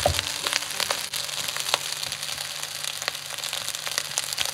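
Fried rice sizzling in a hot pan as a wooden spatula stirs it, a steady hiss with scattered light crackles and one knock at the very start.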